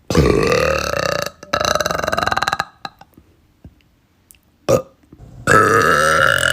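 Young women burping loudly, one burp after another: two long, croaky burps in the first three seconds, a short one a little before five seconds, and another long one starting about five and a half seconds in.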